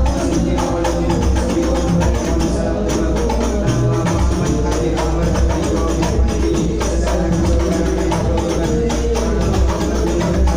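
Music with a fast, steady percussion beat of tambourine-like jingles and hand-struck drums under a held melody.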